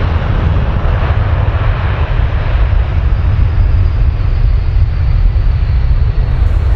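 Airbus A330-300 jet engines running loud on the runway: a steady low rumble with a faint high whine over it.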